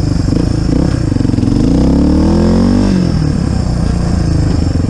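Suzuki DR350SE's single-cylinder four-stroke engine running under way in first gear, the only gear it will engage. The revs climb steadily from about a second and a half in, then drop sharply near the three-second mark, and the engine runs on.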